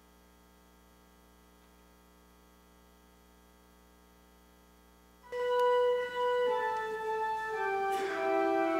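Near silence with a faint steady electrical hum, then about five seconds in an organ begins a hymn introduction: a slow melody of held notes moving step by step.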